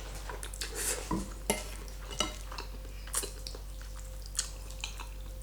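Cutlery clinking and scraping against a plate of pasta, with a few sharp clicks spaced about a second apart.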